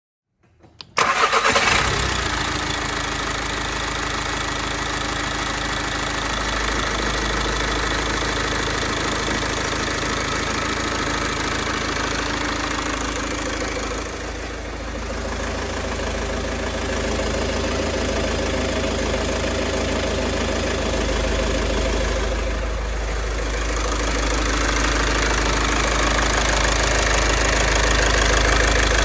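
VW TDI diesel engine with DSG gearbox running, with a strong metallic noise from the engine and gearbox: the sign of a failed dual-mass flywheel. It begins abruptly about a second in and grows a little louder near the end.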